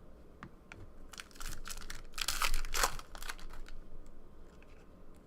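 Crinkling and tearing of a trading card pack's foil wrapper, with the rustle of cards being handled; loudest about two and a half seconds in.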